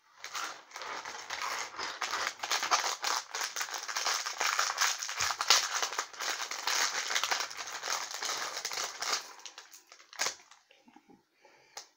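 A thin plastic parts bag handled and opened, crackling densely for about nine seconds, then a few light clicks near the end.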